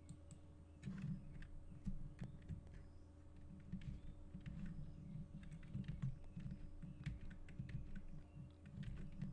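Typing on a computer keyboard mixed with mouse clicks: a run of quick, irregular key taps from about a second in, over a faint steady hum.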